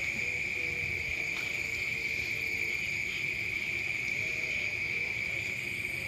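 Crickets chirring in a steady, unbroken night chorus, one high even trill.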